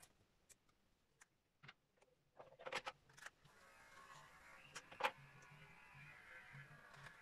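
Faint clicks and knocks of hair-cutting tools being handled at a sink, with a short clatter about three seconds in and a sharp knock about five seconds in. A faint steady hum starts about three and a half seconds in and runs under them.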